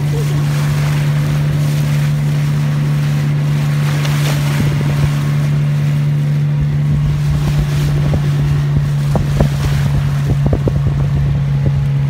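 Motorboat engine running with a steady low drone, under a haze of water and wind noise. A few brief knocks come in the second half.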